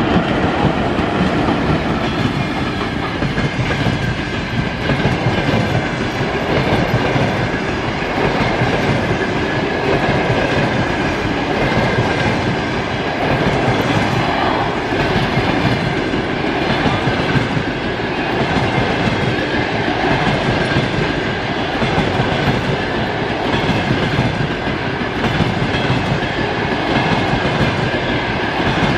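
A long passenger train's coaches rolling past at speed: the wheels run on the rails with a steady, loud clatter over the rail joints.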